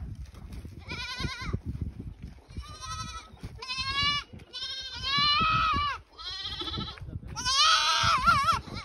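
Young goat kids bleating, a string of about seven high, wavering calls, the last one longer and louder, as a kid is bottle-fed with milk. Scuffing and handling noise sits low underneath.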